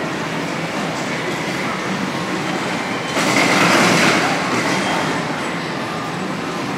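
Train noise in a railway station, steady and even, with a sudden louder rush of noise about three seconds in that fades away over a second or so.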